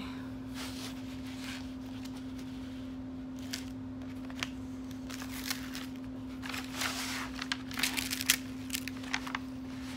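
Light rustling and a scattering of soft clicks and taps as a diamond painting canvas and its small kit parts are handled, busiest in the second half, over a steady low electrical hum.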